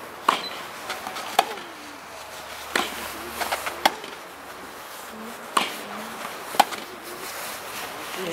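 Tennis ball struck back and forth with rackets in a rally: a series of sharp pops roughly one to one and a half seconds apart, with a few softer ticks in between.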